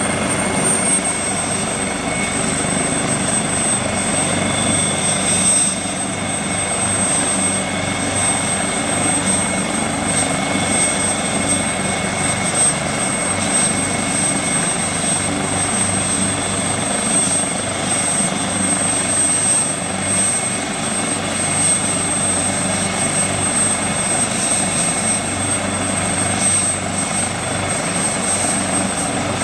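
Helicopter running steadily at close range, a thin high whine held over dense rotor and engine noise.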